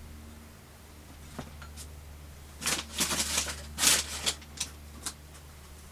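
Bike parts and their packaging being handled: a quick cluster of sharp rustles and clicks about halfway through, over a low steady hum.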